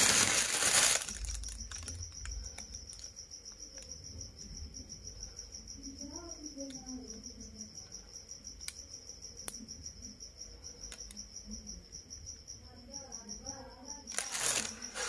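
A cricket chirping steadily with a fast, even pulse in the background. A loud rustle at the start and again near the end.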